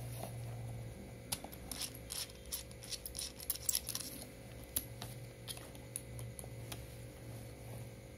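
Hakko 937-clone soldering iron's metal barrel and knurled nut being handled over its ceramic heating element: an irregular run of small, sharp metallic clicks and ticks, thickest in the middle and thinning out toward the end, over a steady low hum.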